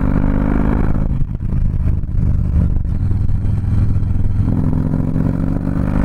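Harley-Davidson CVO Softail Convertible's 110ci Twin Cam V-twin running as the bike is ridden, heard raw on the bike. The note eases off briefly just over a second in, then comes back strong for the last couple of seconds as the engine pulls.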